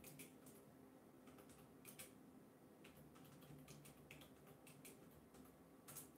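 Faint, irregular clicks and taps of typing on a keyboard, a dozen or more scattered unevenly, the loudest about two seconds in and near the end.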